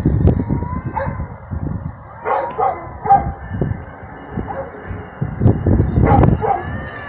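Two cats yowling at each other in a standoff before a fight, in several bouts of wavering, drawn-out calls. Wind buffets the microphone throughout.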